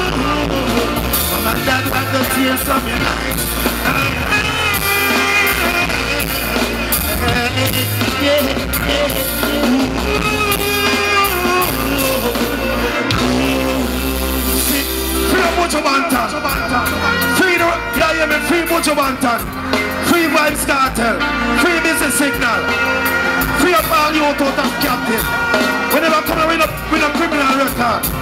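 Live reggae played loud through a concert PA, with a heavy bass line under a man's singing voice on the microphone.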